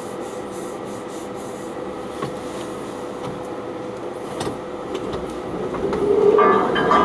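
4x4 engine running as the vehicle creeps along an overgrown off-road lane, heard from inside the cab. It gets louder about six seconds in as the vehicle pushes on, with rubbing and scraping from branches and brush along the bodywork.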